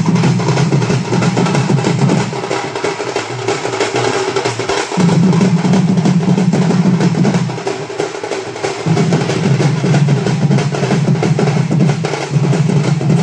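Loud music driven by fast, dense drumming, with a strong low tone underneath that drops out briefly twice.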